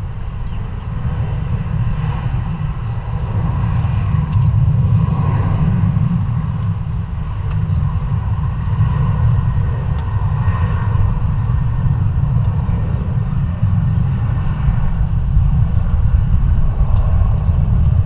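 Jet airliner engines running: a low rumble that grows louder over the first few seconds and then holds steady.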